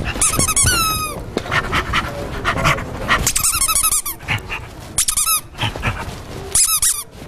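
A man imitating a dog: high-pitched whines and yelps with falling pitch, in several short bursts.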